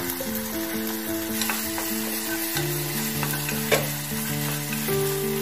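Chopped vegetables and freshly added sauces sizzling in a nonstick saucepan as they are stirred with a spatula, with a few clicks of the spatula against the pan and one sharp knock a little before four seconds in. Background music of held, stepping notes plays over it.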